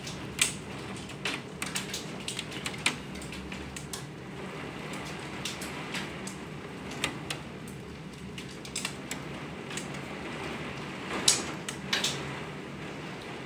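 Hailstones striking the window in irregular sharp ticks over a steady rush of heavy rain, with a couple of louder hits near the end.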